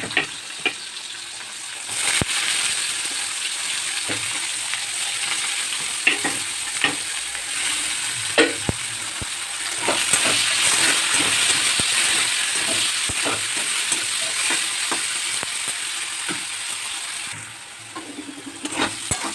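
Onions frying in hot oil in a pan: a sharp rise in sizzling about two seconds in as they go into the oil, then a steady sizzle with the clicks and scrapes of stirring. The sizzle dies down near the end.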